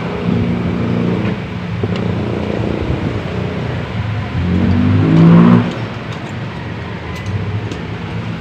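A motor vehicle engine running, rising in pitch as it revs up about five seconds in and then dropping back, with a few light clicks afterwards.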